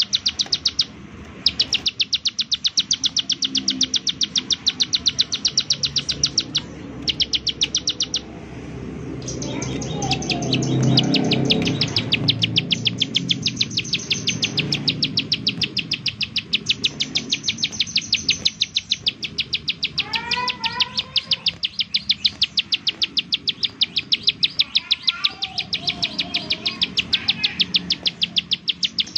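Ciblek sawah, a small prinia, calling in its rapid 'nembak-nembak' style: long runs of sharp, high, evenly repeated notes, broken by a few short pauses. Another bird gives lower, sliding notes in the second half.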